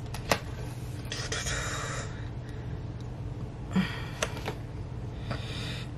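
A woman's soft breaths and a few small clicks over a low steady hum.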